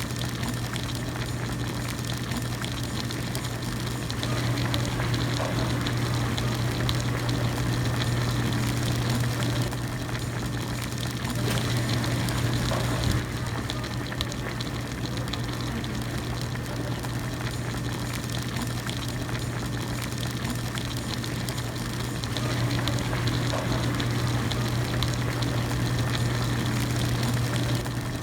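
Hot pot broth at a steady rolling boil: a continuous bubbling hiss with a steady low hum beneath it, swelling slightly in a few stretches.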